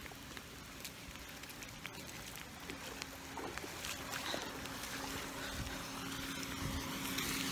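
Rain falling steadily, an even hiss with scattered drops pattering close by. About three seconds in a low steady hum joins it and grows a little louder toward the end.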